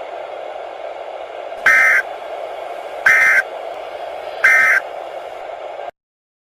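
Emergency Alert System end-of-message signal: three short bursts of screeching SAME data tones about a second and a half apart over a steady static hum, marking the end of the alert. The sound cuts off suddenly near the end.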